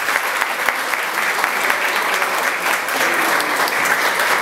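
Audience applauding steadily, a dense patter of many people clapping at once.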